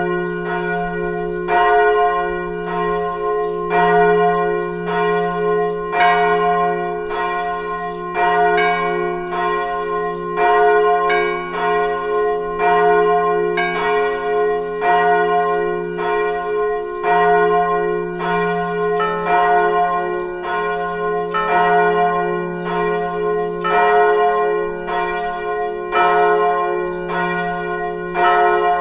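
Several church bells ringing together in a steady run of overlapping strikes, each stroke leaving a long humming tone that rings on under the next.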